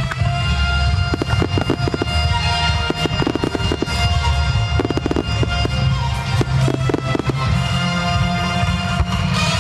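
Fireworks display: aerial shells bursting, with a dense run of sharp crackling reports in the middle. Steady music plays underneath.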